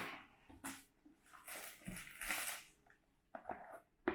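Rustling and handling of packaging during an unboxing, a few short rustles followed by light clicks and taps near the end.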